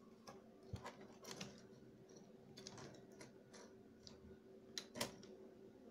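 Scattered light clicks and taps as a computer mouse's circuit board and cable are handled on a wooden desk, with the sharpest knocks about a second in and again near the end, over a faint steady hum.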